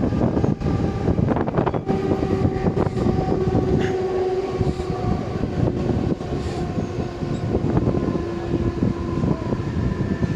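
Mumbai suburban electric local train running, with dense wheel-on-rail rumble and clatter. A steady pitched tone with overtones comes in about two seconds in and holds for roughly seven seconds, dipping slightly in pitch midway.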